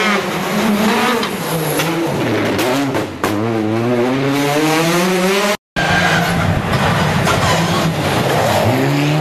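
Rally car engines revving hard through a tight corner, the pitch climbing and dropping with each gear change, with a couple of sharp cracks about three seconds in. The sound breaks off briefly about five and a half seconds in, then another rally car revs and accelerates away.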